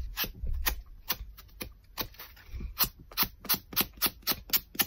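Sanding block rubbed in short strokes along the edge of a paper-covered greyboard piece, trueing the edge. The strokes come about two or three a second at first and speed up to about five a second in the second half.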